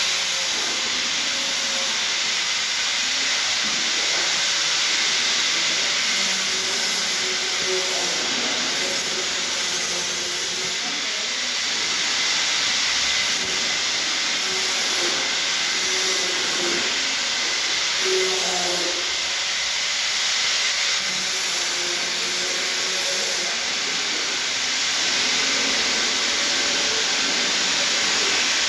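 Stick (shielded metal arc) welding on steel plate: the electrode's arc burning with a continuous, even hiss.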